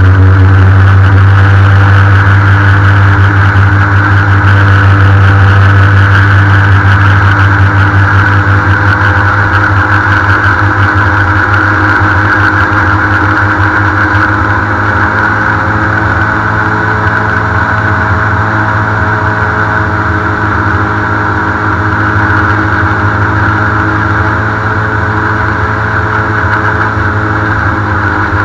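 Airboat's engine and air propeller running steadily while the boat is underway, a loud continuous drone with a strong deep hum. The level eases a little over the second half.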